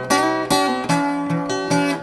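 Background music: strummed guitar chords in a steady rhythm, a new strum about every 0.4 seconds.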